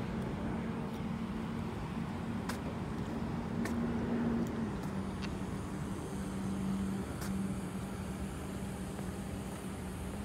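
Steady mechanical hum with a low tone that drops slightly in pitch about halfway through, over a low rumble, with a few faint clicks.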